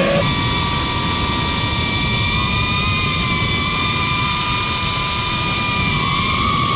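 FPV quadcopter's brushless motors and propellers whining steadily at a high pitch, heard from its onboard camera, with a slight rise in pitch near the end.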